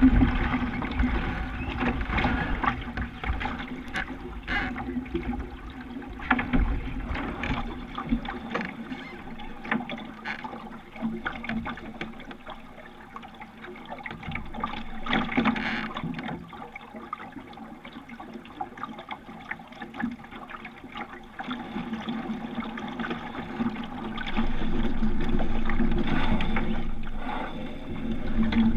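Water rushing and splashing along the bow of a Rooster 8.1 sailing dinghy as it moves under sail, with wind buffeting the microphone for the first several seconds. It gets louder near the end.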